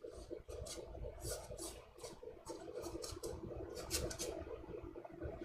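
Faint, soft swishing and scratching strokes, a few each second, over a low steady room hum, typical of an ink brush working on paper.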